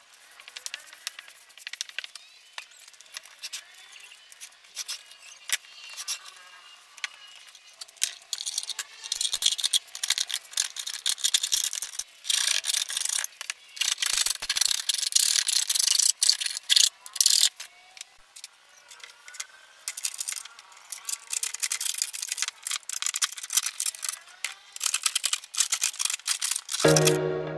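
Repeated dry scraping and rubbing strokes of hand work on HPL laminate sheet: pressing and smoothing it onto the board and filing its edges.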